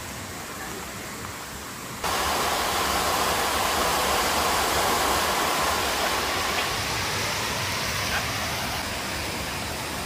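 Steady rush of river and waterfall water, a continuous noisy wash that jumps abruptly louder about two seconds in.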